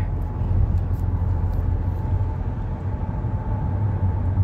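A car driving at highway speed, heard from inside the cabin: a steady low rumble of road and engine noise, with a faint steady whine above it.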